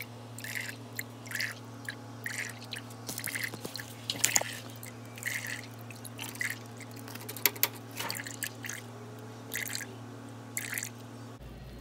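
Antifreeze dripping from both sides of a radiator as it drains, in irregular drips about two a second. A steady low hum runs underneath.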